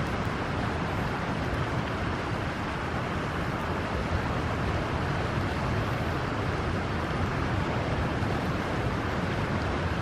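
Steady rushing noise of a shallow river running over a stony bed.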